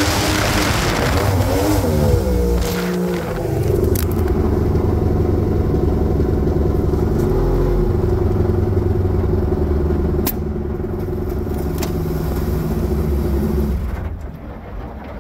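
Mini jetboat's two-stroke engine running hard, its pitch dipping and rising over the first few seconds and then holding steady, with rushing wind and water noise that fades after about four seconds. The engine note drops away near the end.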